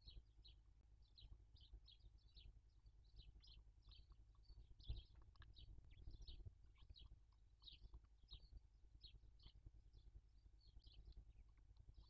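Barn owl chicks calling: faint, short, high chirps that fall in pitch, two or three a second, with one dull knock about five seconds in.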